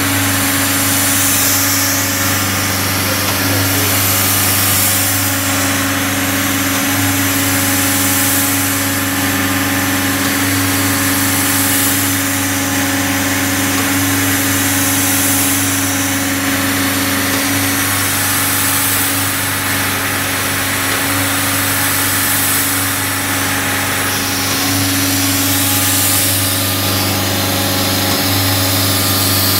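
Nitrogen servicing cart's engine running steadily, with a short airy rush high up every few seconds: the gas booster stroking as the cart builds nitrogen pressure.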